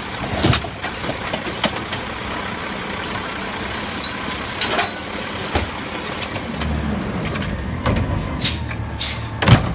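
Garbage truck running while its automated arm lifts and dumps a cart, with scattered sharp clanks and knocks over the steady engine and hydraulic noise. The engine gets louder about two-thirds of the way through.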